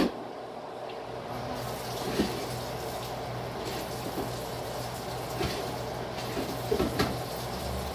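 Stir-fry vegetables sizzling and simmering in a wok on the hot burner, with a little water just added: a steady hiss with a few faint pops and clicks, over a low steady hum.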